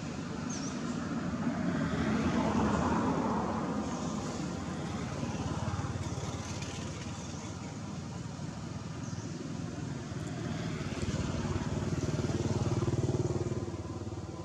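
Motor vehicle engines passing. A low rumbling noise swells about two seconds in and again near the end.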